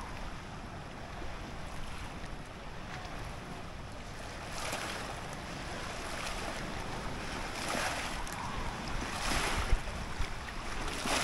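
Wind rushing over the microphone in gusts, with a brief low thump near the end.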